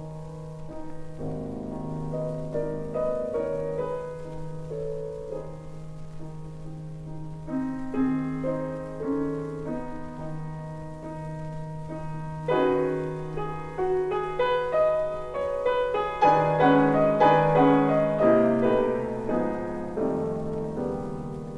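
Solo piano playing slow classical music over a low held bass note. The chords thicken about halfway through and build to the loudest passage, then ease off near the end.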